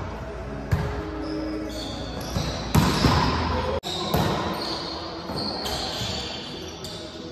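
Volleyball being struck in play: several sharp hand-on-ball smacks echoing in a gymnasium, the loudest a little under three seconds in, with short high squeaks of sneakers on the hardwood court.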